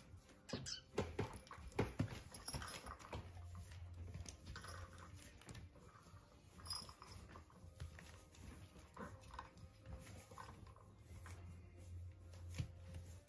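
A litter of young puppies moving about on newspaper, with rustling and light scratching from their paws, and short faint whimpers and squeaks scattered through.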